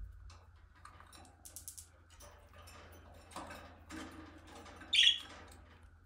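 Budgerigars pecking and nibbling at a chopped egg, carrot and cucumber mix in a plastic cage feeder: a scatter of small beak clicks and rustles, with one short, louder sharp sound about five seconds in.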